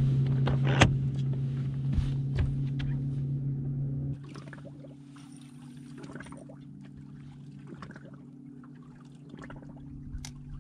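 A boat motor humming steadily, which drops to a much quieter hum about four seconds in, with water lapping against the hull and scattered small clicks and knocks.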